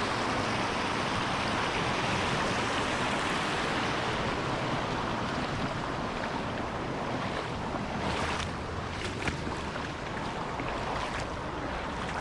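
Water rushing steadily over a small creek spillway. In the last few seconds, short sharp splashes and clicks stand out above the rush.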